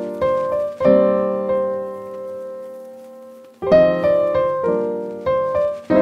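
Background piano music: a few struck notes and chords, with one chord about a second in left to ring and fade for nearly three seconds before the playing resumes.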